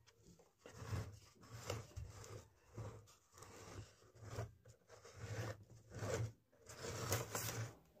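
A hand rubbing and scraping against a hollow plastic container, making a series of short rasping rustles about one a second.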